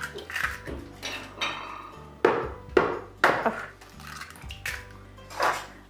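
Eggs being knocked against the rim of a plastic mixing bowl and cracked into it: a few sharp taps, the loudest three about half a second apart a little over two seconds in.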